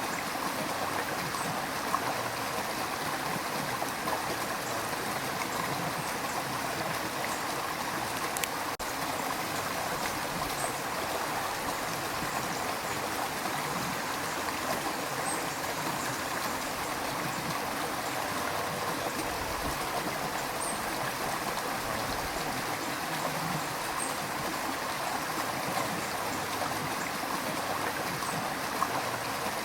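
River water rushing and gurgling over stones in a steady, unbroken flow, with small splashes and trickles.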